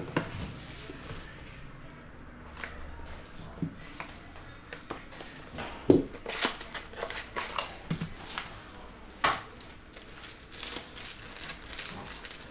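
Shrink-wrapped cardboard trading-card box being handled, its plastic wrap crinkling, with scattered short clicks and taps. The sharpest clicks come about six seconds in and again near nine seconds.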